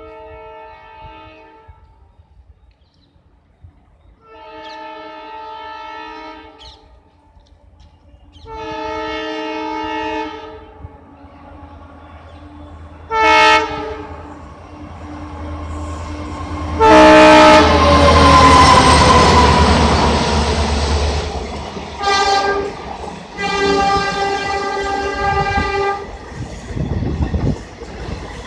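Indian Railways EMD diesel locomotive sounding its multi-tone horn as it approaches at speed: three long blasts, then a short one. It passes close about halfway through, loudest here, with horn and engine sliding down in pitch. The coaches follow, clattering over the rail joints, and the horn sounds twice more near the end.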